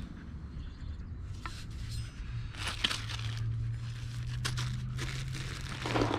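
Packaging crinkling and rustling as it is handled, in scattered bursts, with a low steady hum underneath from about two seconds in.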